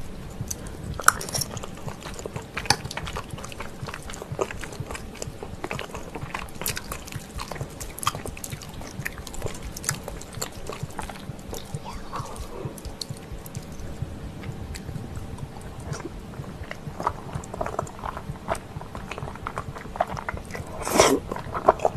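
Close-miked chewing and wet mouth sounds of someone eating creamy mentaiko pasta, with small clicks throughout. Near the end a louder, longer slurp as a forkful of noodles is sucked in.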